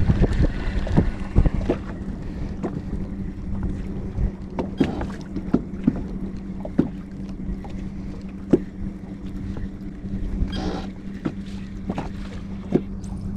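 Small aluminium fishing boat on choppy water: irregular sharp knocks of waves slapping the hull over wind rumble on the microphone, with a steady low hum from the bow-mounted electric trolling motor.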